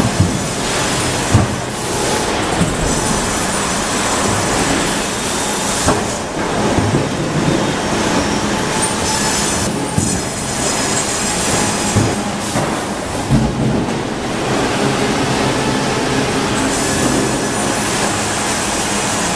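Double-cut band headrig sawing a log as the log carriage runs along its track: a loud, steady machine din with a faint high whine, broken by several sharp knocks and clanks.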